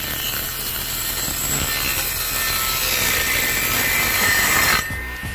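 Homemade circular saw driven by an 895 DC motor, its 4-inch blade cutting through a wooden board: a loud, steady rasping whine that grows louder, then stops sharply near the end.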